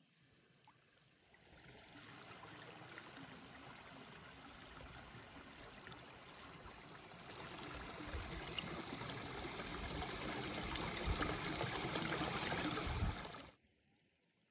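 Running water: a steady rushing that grows louder over about ten seconds, with low rumbling near the end, then cuts off suddenly.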